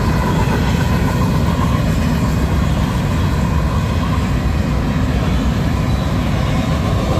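Freight cars of a manifest train rolling steadily through a grade crossing: a loud, even rumble of steel wheels on the rails.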